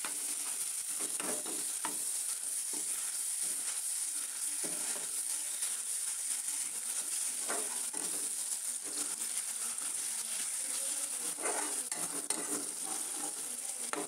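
Chopped onion, garlic and ginger sizzling steadily in hot oil in a steel kadai. A metal slotted spoon scrapes and clinks against the pan now and then as the mixture is stirred.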